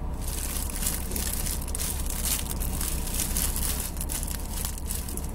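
Plastic packaging crinkling and rustling as it is handled and squeezed, a dense run of quick crackles.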